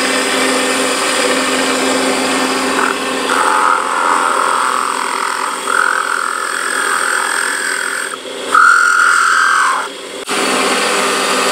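Small cue-repair lathe's motor running with a steady whine, while a hand-held blade scrapes the spinning end of a cue shaft to reface leftover tip material. The scraping swells in several short stretches and is loudest near the end, where the sound briefly drops out and comes back.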